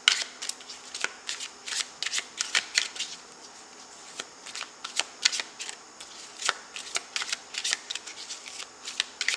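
Tarot deck being shuffled by hand: a string of quick, irregular snaps and rustles as the cards strike and slide against each other, easing off briefly about four seconds in.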